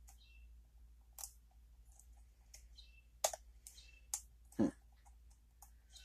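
Lock picking: scattered small metal clicks of a pick and tension wrench working the pin stack inside a Steel Pinnings challenge lock, with one louder short sound about two-thirds of the way through.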